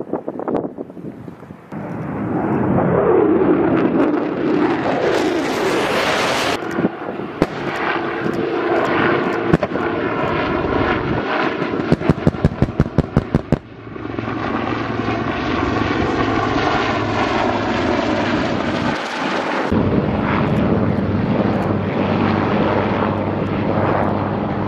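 A jet passes low overhead, its roar falling in pitch as it goes by. Then military helicopters fly past, an AH-1Z Viper and a UH-1Y Venom: a rhythmic thudding of rotor blades, then a steady turbine and rotor hum.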